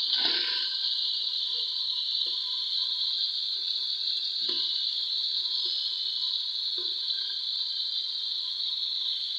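Steady hiss of a lit gas stove burner under a covered aluminium pan on a tawa, with a few light knocks as the pan is handled, once near the start and twice more about halfway through.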